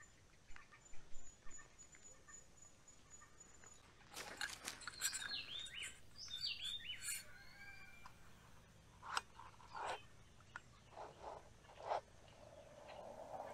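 Birds calling with a run of swooping chirps in the middle. Before and after them come a few sharp metal clinks from a spoon and lid being handled on a titanium mug.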